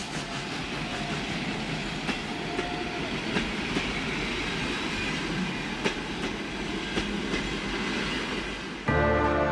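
A train running on the rails: a steady rumble with sharp clanks now and then. Music comes in near the end.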